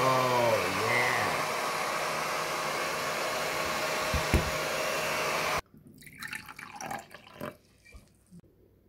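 Hair dryer blowing steadily, then cutting off abruptly about five and a half seconds in; faint handling clatter follows. A short two-note rising-and-falling tone sounds over the dryer at the very start.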